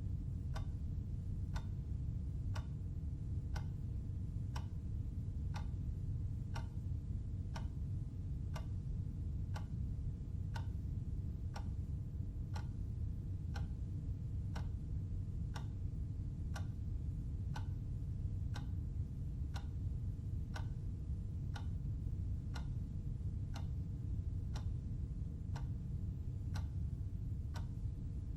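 Clock ticking steadily at about one tick a second, over a steady low background hum.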